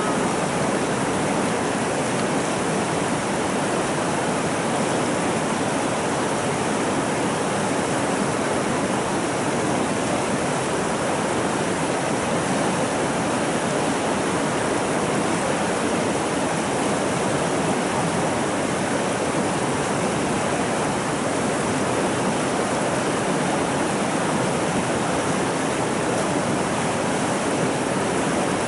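Fast river water rushing over and around boulders: a steady, even rush that does not change.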